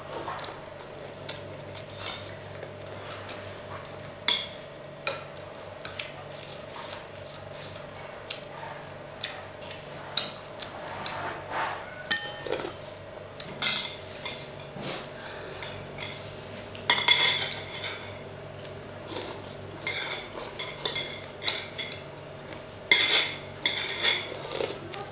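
Metal spoons, a fork and chopsticks clinking and scraping against a glass bowl and ceramic plates during a meal: scattered sharp clicks with busier flurries several times, over a steady low hum.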